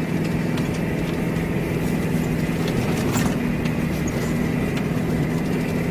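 Toyota Land Cruiser KZJ70's four-cylinder turbo-diesel engine running steadily as the 4x4 drives through deep snow, its pitch holding constant.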